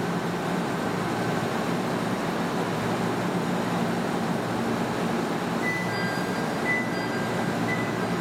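An Ichibata Electric Railway 5000 series electric train standing at the platform, its onboard equipment giving a steady hum and hiss. Thin high tones come in about six seconds in.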